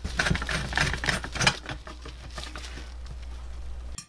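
Small metal clicks, taps and scrapes of screws and fittings being handled and driven while reassembling a light chaser's galvanized sheet-metal frame, over a low hum that stops abruptly near the end.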